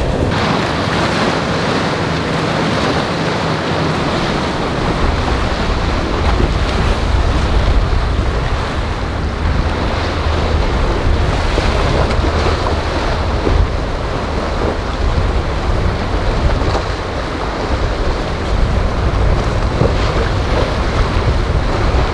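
Wind buffeting the microphone over breaking waves and the drone of boat engines running through the inlet.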